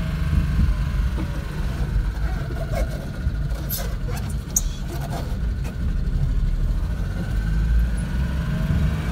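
Small kei vehicle engine running at low speed as it drives slowly, a steady low rumble, with a few light clicks and rattles about two to six seconds in.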